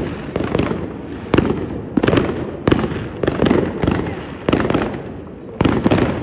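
Fireworks going off in a rapid, irregular barrage of sharp bangs, several a second, each with a short crackle after it.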